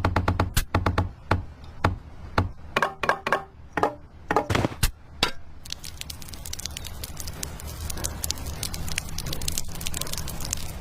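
Quick, sharp taps and clicks of small hard pieces, several with a brief ring, giving way about halfway to a dense, steady crackling hiss full of tiny clicks.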